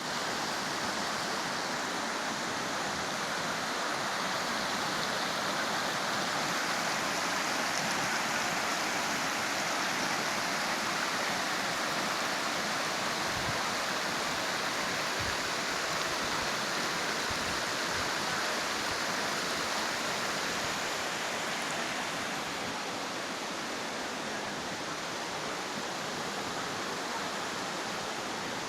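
Waterfall: a steady, even rush of falling water, easing slightly about two-thirds of the way through.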